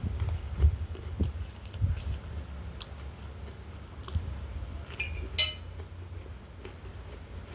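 Close-miked eating of ramen noodles: soft chewing sounds through the first couple of seconds, small clicks, and two sharp clicks or crunches about five seconds in.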